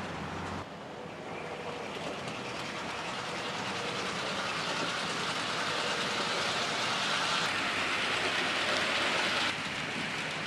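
HO-scale model train running along the track, a steady rolling rattle of wheels and motor that grows gradually louder, then drops off abruptly near the end.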